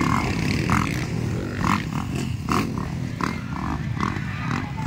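Motocross dirt bike engines running on the track: a steady low rumble, with a string of short, higher blips through the middle.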